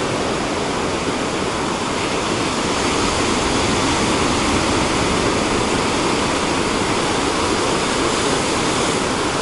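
Ocean surf: a steady rush of breaking waves.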